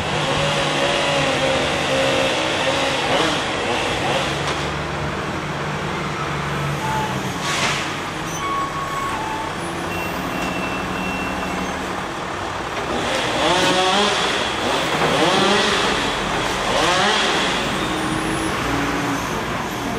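Diesel wheel loader with a log grapple running and driving, its engine steady, then revving up twice with a rising pitch in the second half.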